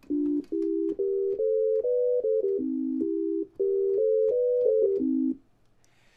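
Reaper's built-in ReaSynth software synthesizer playing a short melody of held notes. Each note is a sine tone doubled by a second sine detuned just off. The tune climbs and falls twice and stops about five seconds in.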